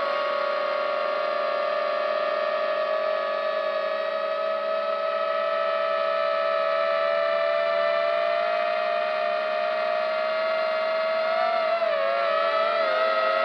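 Drone's electric motors and propellers whining steadily at a high pitch, which wavers and shifts briefly near the end.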